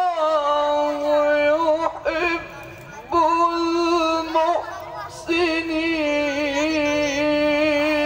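Male Quran reciter chanting in melodic tilawah style into a handheld microphone: long, high held notes on "wallahu yuhibbu", with short breaths about two and about four and a half seconds in, then a wavering, ornamented melisma through the second half.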